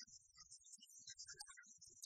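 Near silence, with only faint scattered noise.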